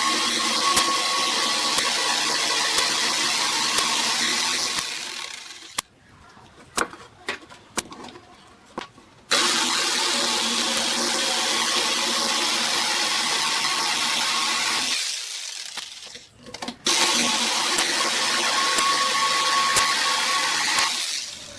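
An electric power tool motor running in three long runs of about five to six seconds each, with a steady whine. The first two runs fade away as it winds down. Light clicks and knocks come in the pauses between the runs.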